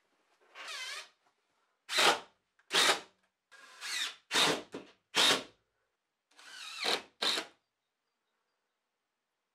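Cordless drill-driver running in about eight short bursts, its pitch rising and falling within each, as it works into Fermacell gypsum-fibre wall panels.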